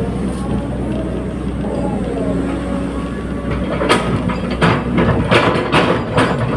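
Caterpillar 320D excavator's diesel engine running steadily, joined about four seconds in by a series of sharp knocks and clanks.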